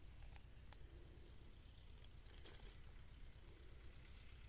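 Near silence: faint outdoor background with quick, repeated high chirps from small creatures in the grass or nearby, and a couple of faint clicks.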